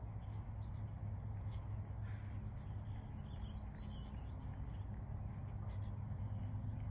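Birds chirping faintly now and then over a steady low rumble of outdoor background noise.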